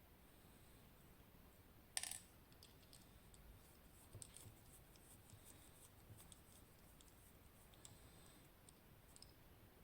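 Small clicks and light metallic clinks from a West 955 lock being taken apart, with one sharper click about two seconds in and scattered lighter ones after it.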